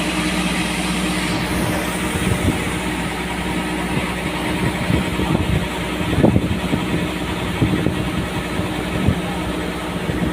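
An engine running steadily at constant speed, with some irregular clattering knocks about halfway through.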